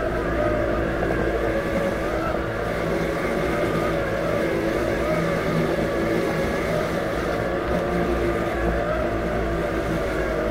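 Robotic lawn mower's electric motors running as it mows the lawn: a steady whine whose pitch wavers slightly, over a low hum.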